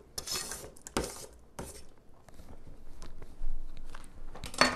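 A knife scraping sliced sausage off a plastic cutting board into a steel Instant Pot insert, in short scrapes, with a sharp knock about a second in and a clink near the end.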